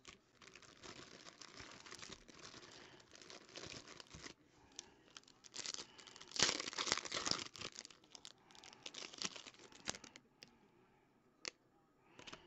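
Foil trading-card pack wrapper crinkling and tearing, with cards rustling and sliding between the fingers; the loudest crinkling comes about six to seven seconds in, and a couple of light clicks follow near the end.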